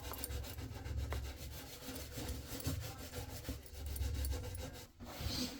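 Quick, repeated rubbing and rasping strokes that stop just before the end.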